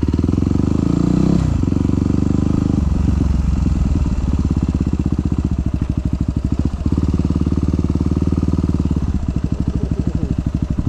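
Yamaha WR250 supermoto's single-cylinder four-stroke engine running at low speed, the bike moving off slowly. Its note shifts several times as the throttle comes on and off.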